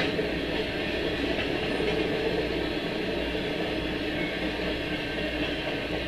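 Freight train's Tropicana refrigerated boxcars rolling past: a steady noise of steel wheels running on the rails.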